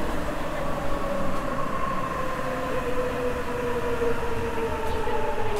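A Sapporo Municipal Subway 9000 series rubber-tyred train running through the tunnel, heard from inside the car. Its motor whine sounds as two tones that fall slowly in pitch over a steady rumble as the train slows.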